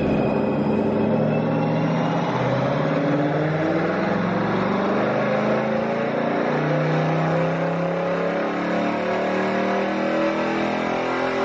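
Jeep Grand Cherokee Trackhawk's supercharged V8 running at speed on a dyno, with a high supercharger whine that dips and climbs back up in the first two seconds. It is the new engine's break-in, run up through the revs to seat its piston rings.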